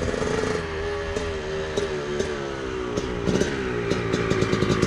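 Honda CR250R's single-cylinder two-stroke engine running as the motocross bike is ridden, its pitch sagging and picking up again with the throttle, with an uneven crackle in the second half.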